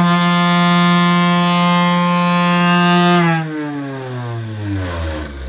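Porter-Cable palm sander mounted on a 2x4 screed board, running with a steady electric motor whine to vibrate the board. About three seconds in it is switched off, and its pitch falls away as the motor winds down.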